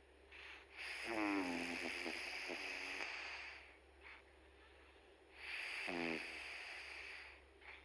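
A cat snoring in its sleep: two slow breaths about four and a half seconds apart, each opening with a brief pitched rasp.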